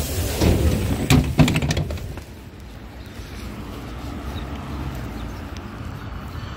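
A few sharp knocks and clatter in the first two seconds as someone steps down out of an LVS-86K tram through its open folding doors, then a steady low rumble of the street outside.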